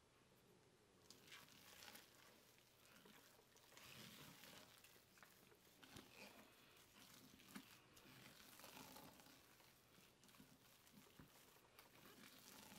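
Silicone spatula stirring and folding a thick, soft cheese mixture in a glass bowl: faint, irregular squishing and scraping with a few light clicks.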